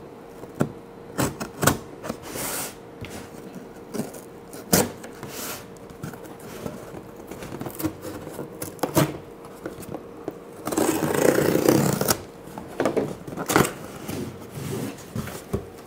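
A toy figure's package being opened by hand: scattered clicks, taps and rustles of cardboard and packing, with a longer, louder stretch of scraping about eleven seconds in.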